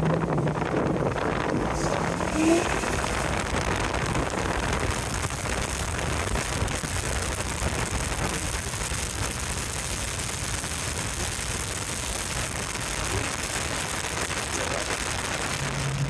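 Wind buffeting the camera microphone through the open window of a moving car: a steady, even rush of noise.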